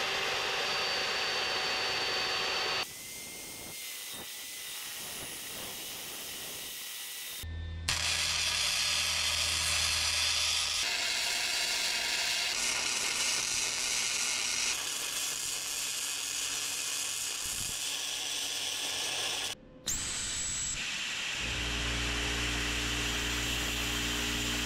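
Metal fabrication sounds in quick succession: an abrasive chop saw cutting steel square tubing with a steady whine, then a long stretch of arc welding with a steady hiss, then near the end a plasma cutter hissing through steel plate over a steady low hum.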